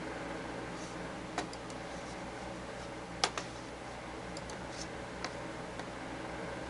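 A few scattered clicks of a computer mouse, the loudest a quick pair about three seconds in, over a steady background hiss.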